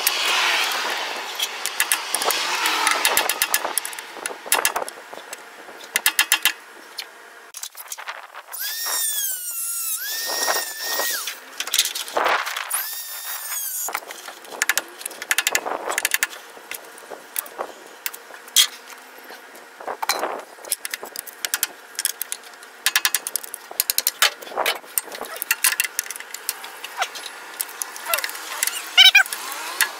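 Metal work on the camshaft nose of a Ford 4.9 L inline-six: a grinder tool cutting away the metal collet left from the broken fiber cam timing gear. It starts with a stretch of grinding, has brief high whines that waver in pitch around nine and twelve seconds in, and is otherwise irregular metallic clicks, taps and scrapes.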